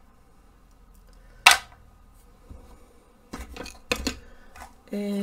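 Art tools handled on a cluttered work table: one sharp click about a second and a half in as something hard is set down, then a cluster of lighter knocks and clicks as a wide flat brush is picked up from among the tools. A short held hum of a voice starts just before the end.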